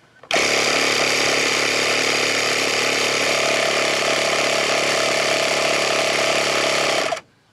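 12 V portable air compressor (tire inflator) switched on, running steadily for about seven seconds, then switched off. It runs kind of slow because it is powered from a jump-starter pack that needs charging. It now makes air again, its loose head bolts tightened.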